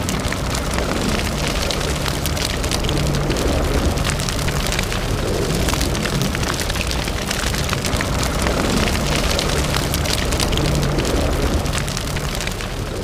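Sound effect for a logo intro: dense crackling like burning embers over a low rumble, easing off near the end.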